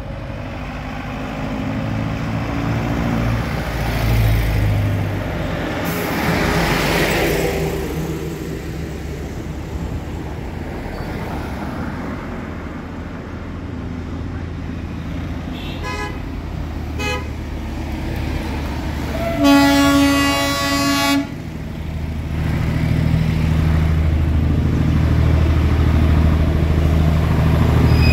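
Road traffic with a vehicle passing close about six seconds in, two short horn toots, then a long horn blast of nearly two seconds. After it a low engine rumble builds toward the end as the Darjeeling Himalayan Railway toy train and a car approach around the bend.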